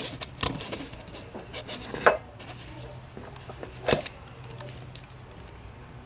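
Small hard objects being handled on a hard surface: scattered light clicks and knocks, with sharper knocks about half a second, two seconds and four seconds in, over a steady low hum.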